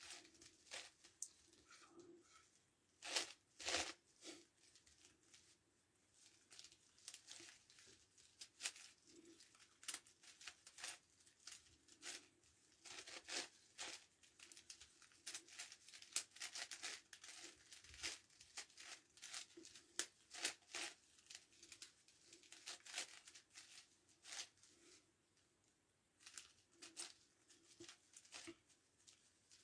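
A plastic 9x9x9 Rubik's Cube being turned by hand: its layers click and scrape in quick, irregular runs of turns with short pauses between them.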